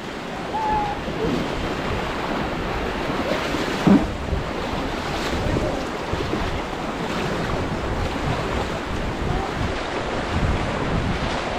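Steady rush of river water around a rafting boat, with wind buffeting the microphone. There is one short, sharper sound about four seconds in.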